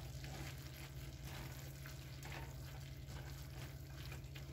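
Shredded cabbage, bacon, tomato and onion frying in a nonstick pan and being stirred with a plastic spatula: a faint steady sizzle with light scraping strokes, over a steady low hum.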